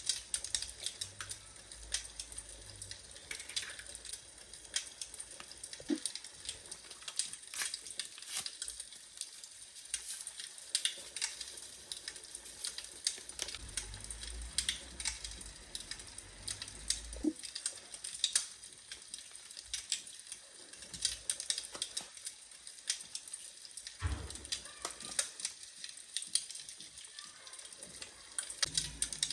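Food sizzling in a pan: a steady crackling hiss full of small clicks, with a few heavier knocks of utensils against the pan.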